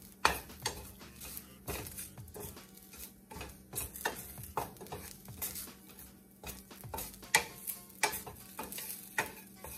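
Wooden spatula stirring garlic cloves in a stainless steel skillet, making irregular scrapes and knocks against the pan as the garlic sizzles, with a steady low hum underneath.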